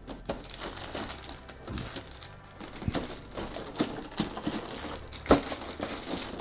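Packaging crinkling and rustling as toy parts are unwrapped and handled, with scattered clicks and one sharp knock about five seconds in.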